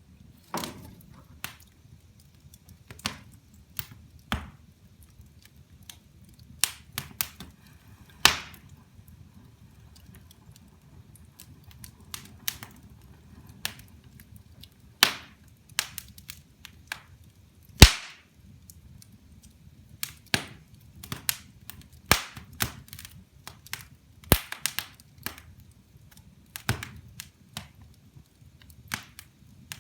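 Wood fire in a fireplace crackling: irregular sharp snaps and pops from the burning logs over a quiet low rumble of the flames, with the loudest snap a little past halfway.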